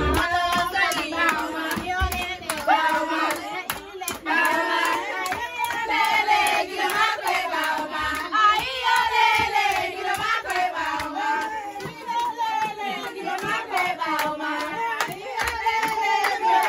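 A crowd of guests chanting and singing together in celebration of the bride, with many voices overlapping and hands clapping throughout.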